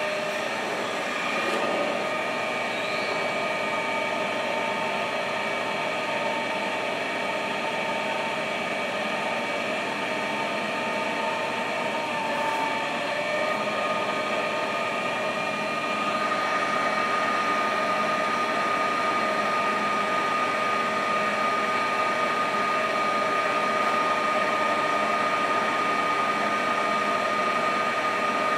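Chevalier FCL-2480 CNC flat-bed lathe running under power, a steady mechanical hum of spindle and drive made of several steady tones. About halfway through a higher steady whine comes in and the sound grows slightly louder.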